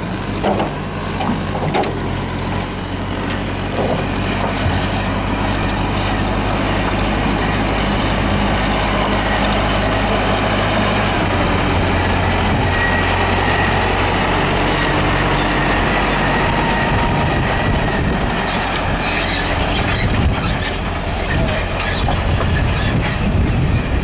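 Diesel engine of a backhoe loader running steadily.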